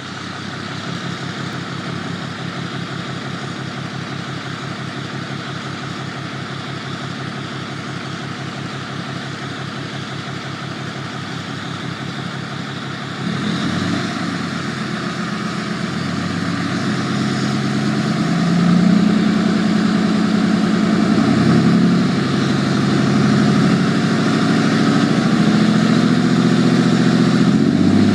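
2007.5 Ram 2500's 6.7-litre Cummins turbo diesel idling through a 4-inch turbo-back exhaust with no muffler, just after a start. About halfway through, the idle gets louder and fuller as the variable-geometry turbo, set by a Smarty tuner's VGT control, closes down to make the turbo whistle.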